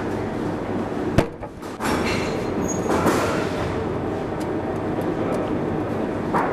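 Horizontal water mill running: a steady rumbling clatter from the turning millstone. About a second in there is a sharp click and the sound drops briefly before carrying on.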